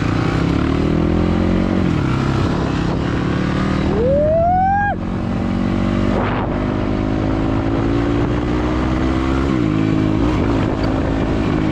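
Motorcycle engine pulling under acceleration while riding, its note climbing and then dropping back at gear changes about two and ten seconds in, over wind rush. A brief rising whistle-like tone comes about four seconds in.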